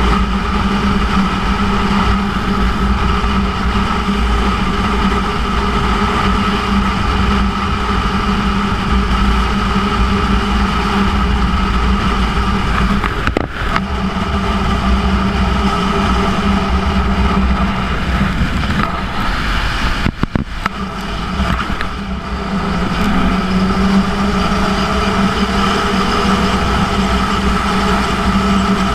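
2006 Yamaha YZF-R1's inline-four engine with a Yoshimura titanium exhaust running steadily on the road, heard from a camera mounted on the bike. The sound dips briefly twice, around halfway through and again a little later, then the engine note rises in pitch near the end.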